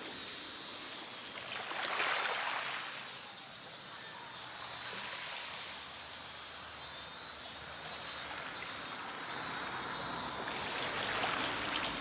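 Small waves washing onto a pebble beach, with a stronger wash about two seconds in and another near the end.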